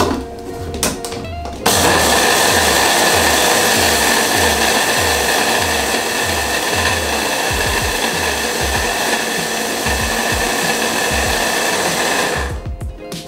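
Electric hand blender with a chopper bowl attachment running steadily with a high whine, chopping a thick cocoa and nut-butter mixture; it switches on about a second and a half in and stops about a second before the end. Background music with a steady beat plays throughout.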